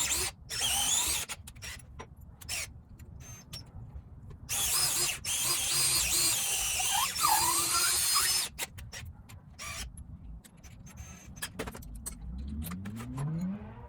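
An 8-inch lag screw being driven into pressure-treated timber. It squeals sharply in two stretches, a short one at the start and a longer one of about four seconds in the middle, with scattered clicks between. Near the end a drill motor speeds up with a rising whine.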